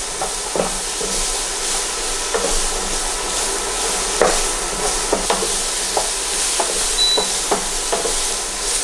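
Diced courgette sizzling in olive oil in a frying pan, a steady hiss, with irregular clicks and scrapes of a utensil stirring it in the pan.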